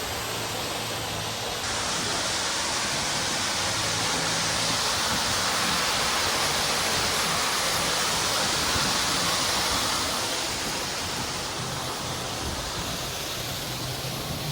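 Steady rushing water, like a waterfall or fountain pouring. It swells louder about two seconds in and eases back near ten seconds.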